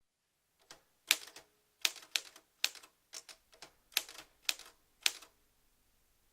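Typewriter keys struck in short, uneven runs of sharp clicks, stopping a little past five seconds in.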